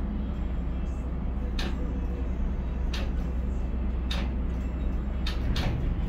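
Steady low rumble of a container crane's machinery heard inside the operator's cab, with a handful of sharp clicks or knocks spread through it.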